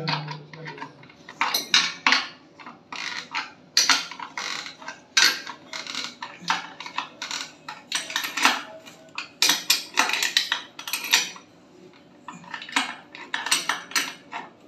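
Metal spanner clinking and clicking against a nut and the geyser's mounting bracket in short irregular strokes as a mounting nut is tightened.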